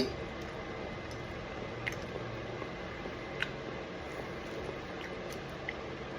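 A person eating at a table: quiet, wet chewing sounds, a light clink of cutlery on a plate at the start and a few fainter ticks later, over a steady low room hum.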